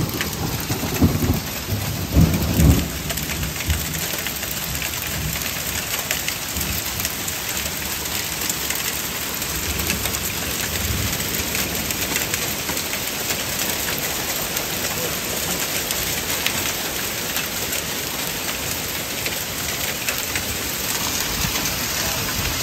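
Steady rain falling hard on a porch and garden during a storm, with a few low rumbles in the first three seconds.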